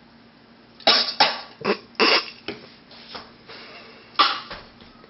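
A person coughing in a run of short, sharp bursts, then once more about four seconds in: paprika powder sniffed from the jar has gone up his nose.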